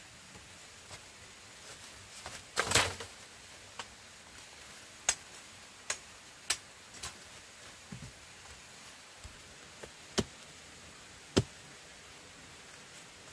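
Scattered sharp knocks and clicks, like hard objects being struck or handled. A louder, longer cluster comes about two and a half seconds in, followed by single knocks at irregular intervals of about a second.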